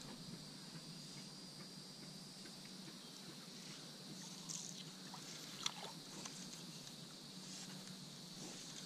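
Faint, steady high-pitched insect drone, with a single small click a little over halfway through.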